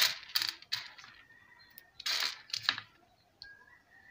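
Dried black-eyed beans clicking and rattling against a metal tray as fingers push through them to pick out the broken ones, with a short sliding scrape about two seconds in.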